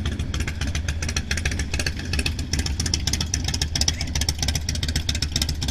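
Bagger motorcycle engines running close by, a steady low rumble with a rapid, even exhaust pulsing.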